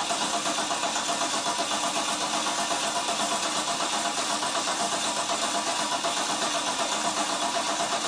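Starter cranking a 3.8-litre Ecotec V6 for about eight seconds: an even, rapid chug of compression strokes over the starter whine, with the engine turning over but not catching, and the cranking stops near the end.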